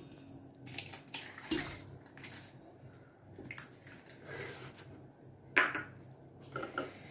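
Eggs being cracked into a bowl: scattered light taps and clinks of shell, bowl and utensils. The loudest is a short clatter about five and a half seconds in.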